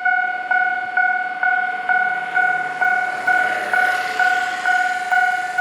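Japanese railway level-crossing warning bell ringing: an electronic 'kan-kan' tone struck evenly, a little over twice a second, the signal that a train is approaching. A swell of rushing noise rises and fades through the middle.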